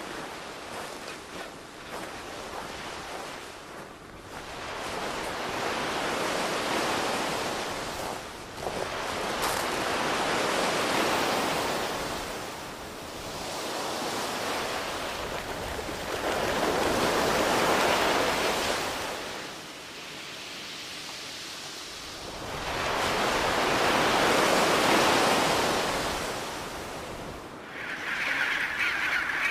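Sea waves breaking and washing in: a wide rush of surf that swells and ebbs every few seconds.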